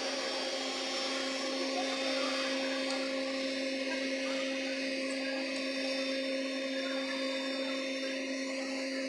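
Steady machinery hum: a constant low tone with a higher overtone over an even hiss, unchanging throughout.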